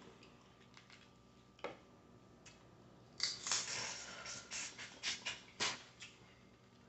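Boiled crawfish being peeled and eaten close to the microphone: a single shell snap about a second and a half in, then about three seconds of eating sounds at the mouth, a string of crackles and smacks.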